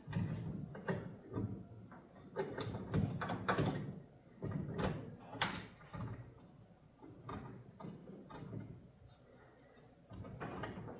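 Irregular knocks, clicks and scraping of metal garage-door hardware being handled, as a roller and its bracket are fitted onto the door's top panel.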